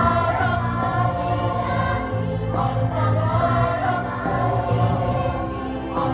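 A choir singing a song in phrases of held notes.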